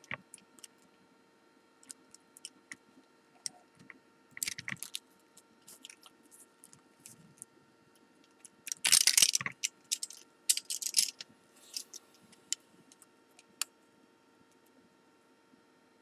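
Small metal clicks and clatter from handling a lock cylinder and its C-clip, in scattered bursts, the loudest cluster about nine seconds in.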